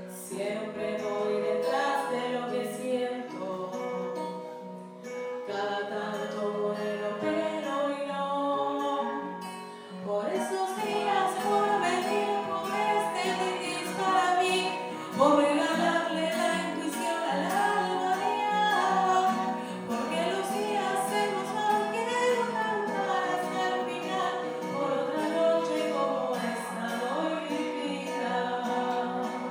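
Song with singing over guitar accompaniment, growing fuller and louder about ten seconds in.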